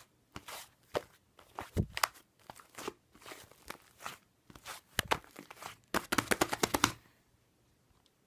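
Fluffy clay slime being pressed and squished by hand, giving irregular crunchy clicks and pops. About six seconds in comes a quick run of rapid popping, roughly ten pops a second, and then it stops.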